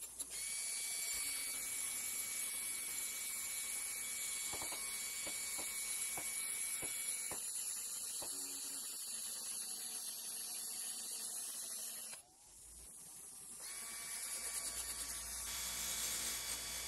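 Bench grinder's wire brush wheel spinning with a steady high hiss as a rusty steel rod held in a chuck is pressed against it, stripping the rust. The sound drops suddenly about twelve seconds in, then builds back up.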